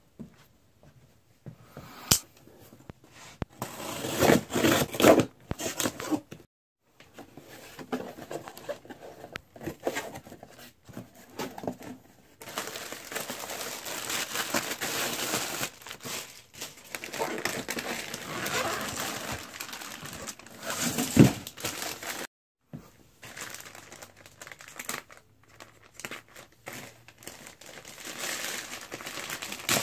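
Cardboard shipping box being opened by hand, then plastic packaging crinkling and rustling as it is pulled out and handled. The sounds come in irregular stretches, with a few sharp knocks and a longer spell of steady crinkling in the middle.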